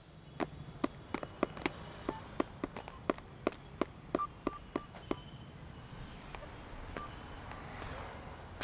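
A quick, irregular run of sharp clicks, a few of them joined by faint short beeps, thinning out about five seconds in to a few scattered clicks.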